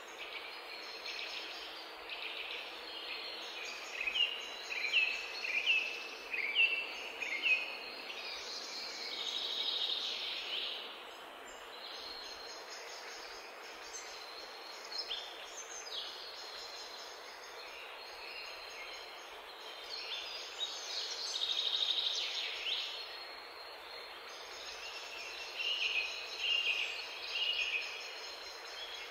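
Wild birds calling over steady outdoor background noise. A quick run of short, high, downslurred chirps comes from about four to eight seconds in, with more bursts of high calls later on.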